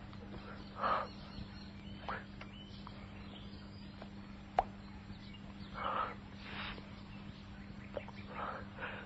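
A couple breathing heavily while kissing, in several short breathy gasps at irregular spacing over a steady low hum. A single sharp click comes about halfway through.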